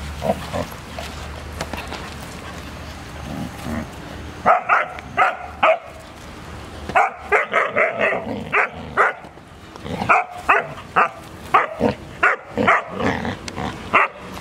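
Dogs play-barking while they wrestle: after a few quiet seconds, quick runs of short, high-pitched barks and yips, several a second, with brief pauses between the runs.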